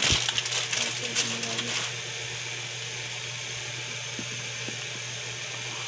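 Dry spaghetti clattering and clicking against the rim of a metal pot as it is dropped into boiling water, for about the first two seconds, then a steady hiss from the boiling pot.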